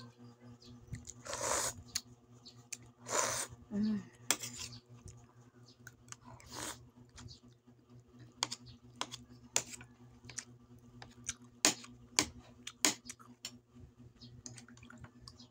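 Spoon and plate sounds while eating: a few scraping noises in the first half, then a run of sharp clinks, over a steady low hum.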